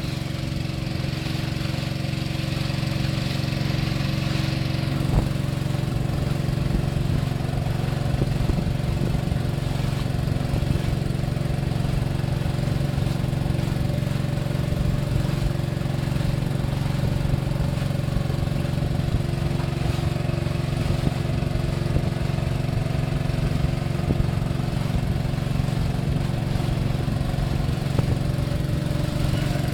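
Small wooden river boat's motor running steadily at a constant speed, heard from on board, with a hiss of wind and water over the first few seconds.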